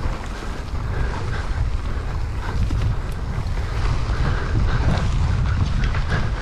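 Wind buffeting the microphone of a mountain bike rider's camera during a trail descent, a steady low rumble, with the bike's tyres rolling over the trail and a few light rattles.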